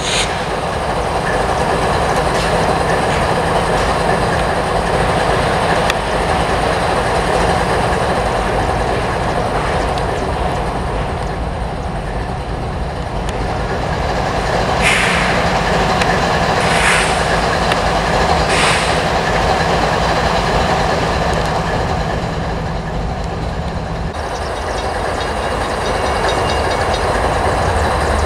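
Train rolling along the track with a steady rumble and clatter of wheels on rail. Three short high-pitched bursts come about halfway through.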